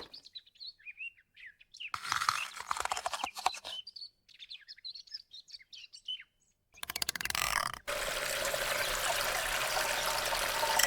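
Birds chirping in short, quick calls, broken by a couple of brief bursts of noise. About three-quarters of the way in, a steady rushing noise takes over.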